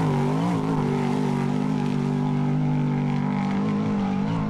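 Off-road race truck's engine running at steady revs, with a brief dip and recovery in pitch about half a second in.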